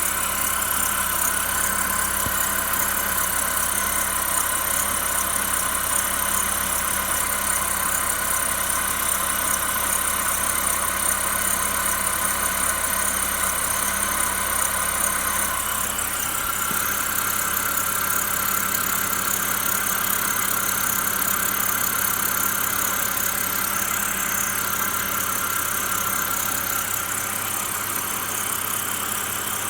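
BMW N52 inline-six engine running at idle with a steady whine over it: the noise of a failing bearing in the belt tensioner pulley. About halfway through, the low hum drops away while the whine carries on.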